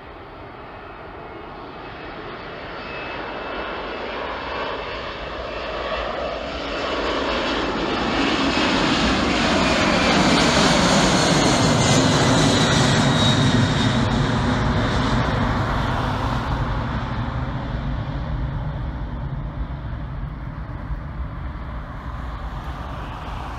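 Airbus A300-600 freighter's twin jet engines at take-off power as the aircraft climbs out overhead. The engine noise builds to its loudest about halfway through, with a high whine falling in pitch as the jet passes, then a low rumble fades as it climbs away, cut off suddenly at the very end.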